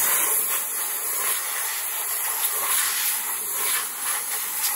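Compressed-air blow gun hissing steadily as it blows metal chips off a milling machine's fixture plate.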